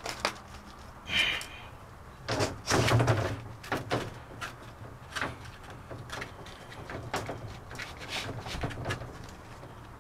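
Irregular knocks, bumps and short scrapes from plywood and tools being handled during van wall work, the loudest clatter about three seconds in.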